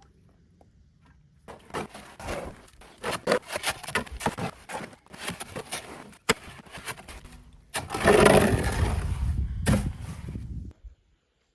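A run of sharp knocks and scrapes, then a louder, rough scraping noise lasting about three seconds that cuts off near the end.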